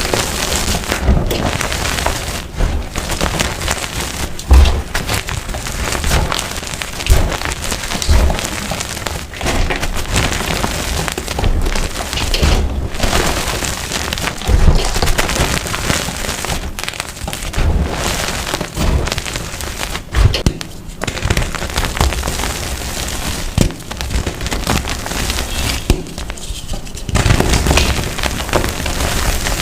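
Blocks of dyed gym chalk being crushed and crumbled close to the microphone: dense, crisp crunching and crackling with many sharp snaps and frequent low thumps.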